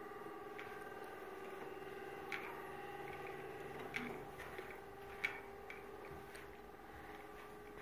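A steady machine hum with several even tones held throughout, with a few faint sharp clicks about two and a half, four and five seconds in.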